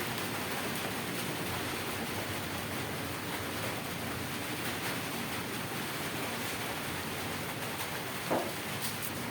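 Air compressor running with a steady rushing noise, and one short pop about eight seconds in.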